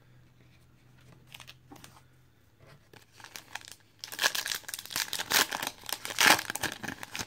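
A foil trading-card pack wrapper being torn open and crinkled. A few soft handling clicks come first, then about four seconds in loud crackling of the wrapper runs on until the end.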